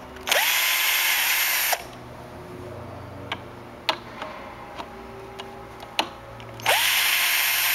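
Electric drill/driver motor running twice, each run about a second and a half: it spins up with a quickly rising whine, then holds a steady whir. It is backing thread-forming screws out of the holes they threaded in a metal plate.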